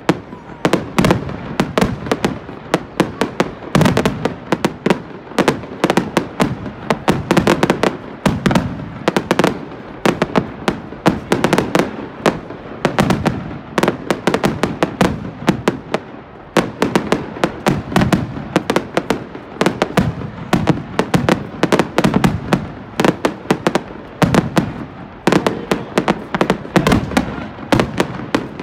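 Aerial fireworks launched and bursting in a rapid, unbroken barrage of sharp bangs, several a second.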